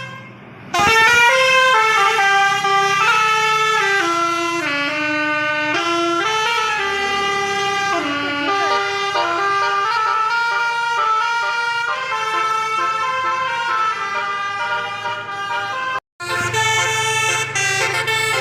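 Tour bus's telolet basuri musical horn playing a long tune, its tones stepping from note to note. It cuts off suddenly about sixteen seconds in, and after a brief gap the horn tones come back over a low hum.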